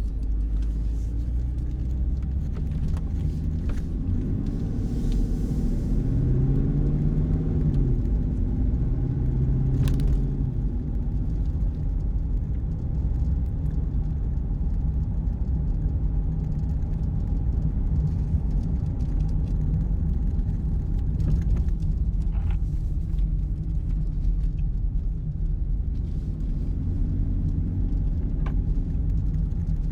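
Dodge Charger R/T's 5.7-litre Hemi V8, breathing through an aFe cold air intake, running as the car drives at low speed. A steady low drone whose pitch rises and falls a few times in the first ten seconds or so as the engine speed changes.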